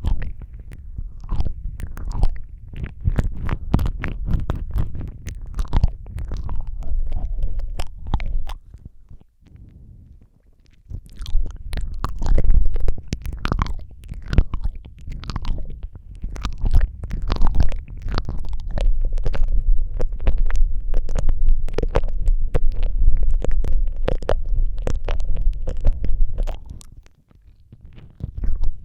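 Close-up ASMR mouth sounds right against the microphone: a dense stream of wet clicks and smacks over a heavy low rumble, with a short lull about nine seconds in.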